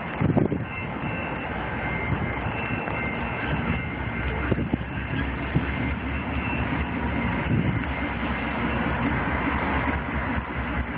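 Diesel locomotive of a train approaching, a low engine rumble growing stronger about halfway through.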